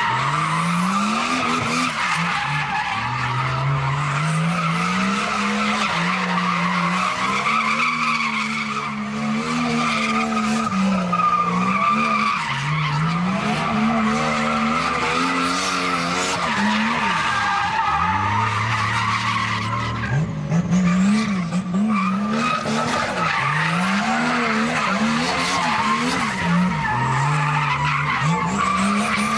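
Nissan Skyline R32 GTS-t's turbocharged straight-six revving hard, its pitch rising and falling again and again as the rear tyres spin through a burnout. Under it runs a continuous screech of tyre rubber.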